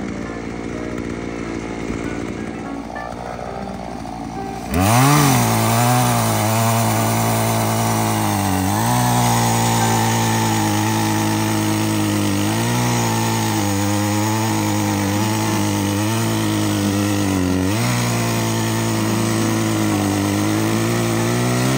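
A chainsaw revs up to full throttle about five seconds in and cuts through a log, its pitch sagging briefly a few times as it bites into the wood, then drops away at the very end.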